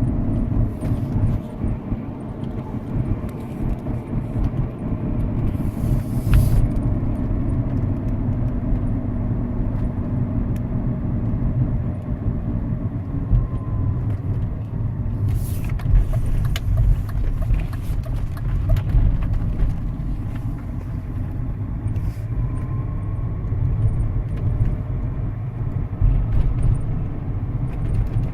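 Cabin noise of a BMW E39 530d, a steady low rumble from the car running, broken by several brief clicks and rattles about six, fifteen to seventeen and twenty-two seconds in: strange cabin noises of unknown cause.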